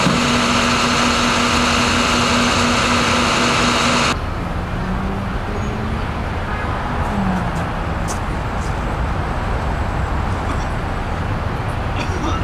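A garbage truck running, a loud steady noise with a held low hum, which cuts off suddenly about four seconds in. After that, a lower steady rumble of street traffic with a few faint clicks.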